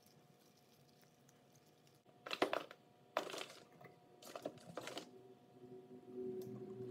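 Metal alligator clips and wire leads rattling and clicking as they are clipped onto screw terminals of wooden circuit blocks: quiet at first, then a handful of sharp clicks and rattles from about two seconds in.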